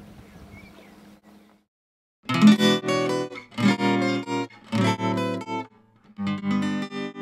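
Faint steady background with a low hum that drops out, then after a short silence guitar music starts about two seconds in: strummed chords, one about every second, left ringing.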